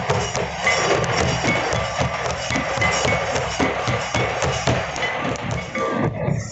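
Several large kettledrums with cane-bound bodies beaten with sticks in a fast, dense, steady rhythm, with a thin high ringing note over the strokes. The sharp high clatter thins out near the end.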